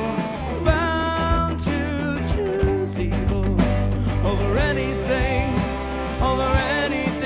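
Four-piece rock band playing a song together: drum kit, bass, and rhythm and lead electric guitars, with held, bending lead notes over steady drum hits.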